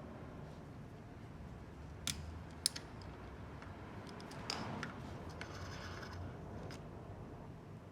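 A few sharp clicks and light clinks of tools or small metal parts being handled, with a brief rattle just past the middle.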